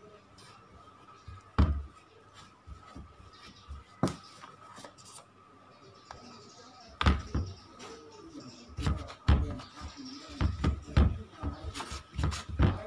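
Hands mixing and kneading tapioca starch dough in a plastic bowl: irregular soft thumps and knocks, a few in the first half, then coming thick and fast from about halfway on.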